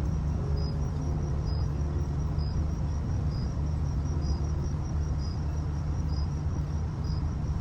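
A cricket chirping in short, evenly spaced pulses, about one a second, over a steady low rumble.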